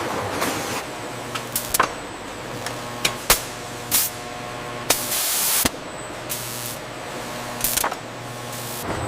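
Bottling-line machinery running with a steady hum, several sharp clicks and clacks, and a short loud hiss of air about five seconds in.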